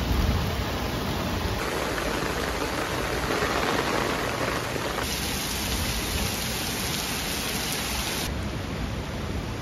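Heavy rain pouring steadily onto a flooded lawn and a tent's rainfly, splashing into ankle-deep standing water. The character of the hiss shifts abruptly three times.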